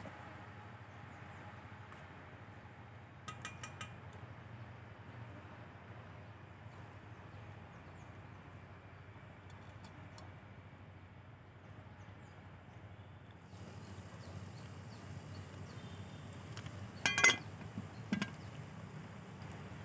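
Quiet background with a few light clinks about three seconds in. Near the end, two sharp metallic clanks as the lid of a black cooking pot is handled by its stick handle.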